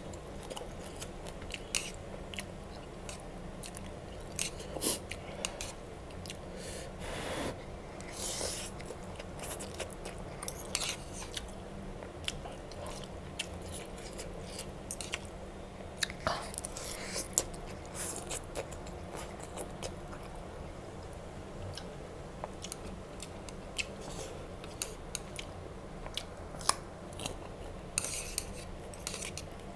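Close-up eating of instant noodles: wet chewing and slurping, in a string of short irregular sounds with a few longer slurps, and metal chopsticks clicking against the plate.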